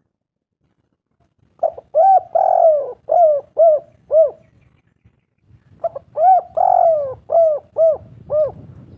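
Spotted dove (tekukur) cooing: two phrases of about six arched coos each, with the third coo drawn out longest. The first phrase starts about a second and a half in and the second near six seconds.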